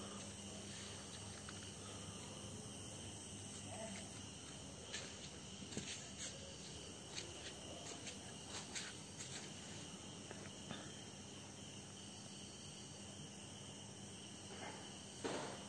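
Crickets chirring steadily, with a few faint clicks in the middle and a brief louder sound near the end.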